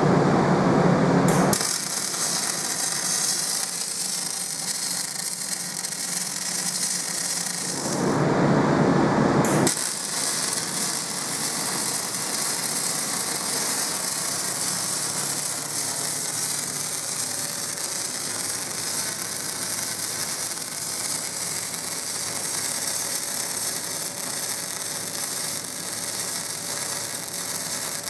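MIG welding arc crackling and hissing steadily as a bead is laid. It is broken twice, at the very start and about eight seconds in, by a louder, deeper rushing noise lasting a second or two.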